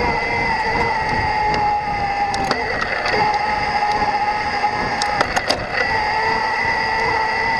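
Yamaha PW-ST ebike drive unit whining steadily under pedal assist, over rough rolling noise. A few sharp clicks come about two and a half seconds in, and a cluster of crackles comes about five seconds in.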